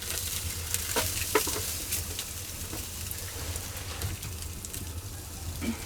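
Spanish mackerel sizzling on a grill grate over wood-fire embers, a steady hiss with scattered crackles and pops.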